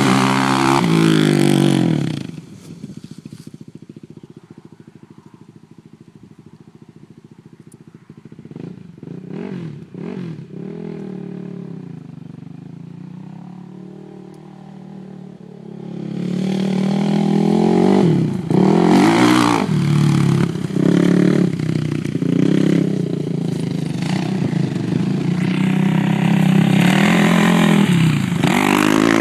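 Suzuki LTR 450 quad's single-cylinder four-stroke engine, loud and revving at first, then dropping to a quiet idle with a few short throttle blips, before accelerating hard again with repeated rises and falls in pitch. Hard acceleration is when the owner reports a weird noise from this quad.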